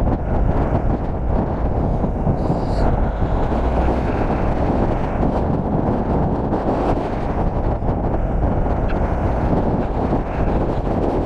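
Steady wind rumble buffeting the microphone of a camera riding downhill at longboarding speed, over the roll of longboard wheels on smooth tarmac.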